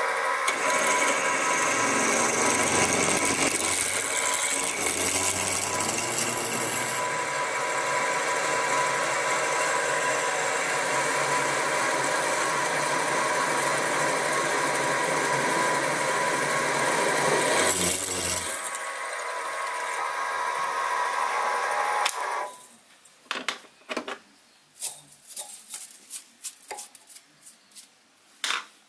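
Sieg SX2P mini mill running with a drill bit cutting a 6 mm hole through a metal spacer: a steady, even machine whine. About 18 seconds in the deeper cutting sound drops away, the motor runs on a few seconds and stops, and scattered light metallic clicks follow.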